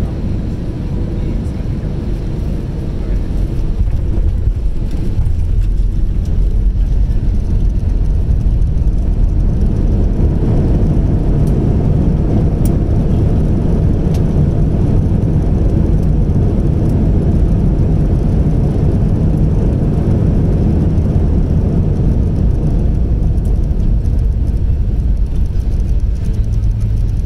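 Cabin noise of an Airbus A320 rolling out along the runway after landing: a steady low rumble of the jet engines and running gear. It grows louder about three seconds in and stays loud as the plane slows down the runway.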